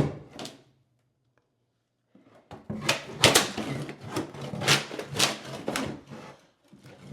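Repeated wooden knocks and scrapes of a thin plywood board being pried up and handled, starting about two and a half seconds in.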